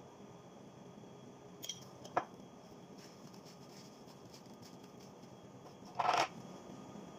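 Faint kitchen handling noises over quiet room tone: a sharp click about two seconds in, then a short, louder rustle near the end as a plastic food container is handled.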